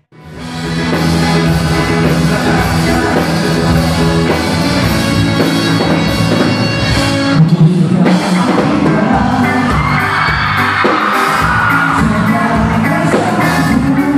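Pop-rock band music with singing, fading in quickly at the start.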